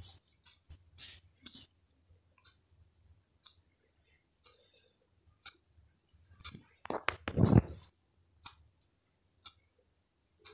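Metal spatula clicking and scraping against a pan while stirring thick spice paste as it fries down. The clicks come irregularly, with one louder, longer scrape about seven seconds in.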